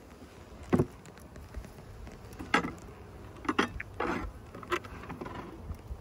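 Wooden hive frames and a metal hive tool knocking and scraping in a beehive box, five or so short knocks over a few seconds, over a low wind rumble.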